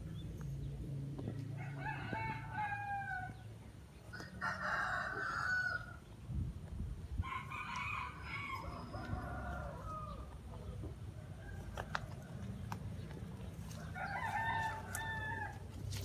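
Rooster crowing four times, each crow lasting one to two seconds.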